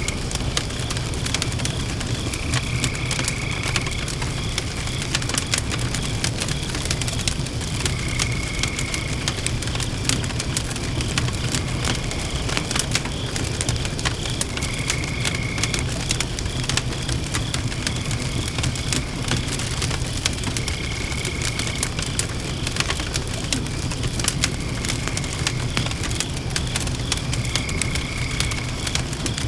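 Campfire crackling, with dense pops and snaps over a low rumble. Behind it, crickets chirp steadily, and a short higher call about a second long repeats roughly every six seconds.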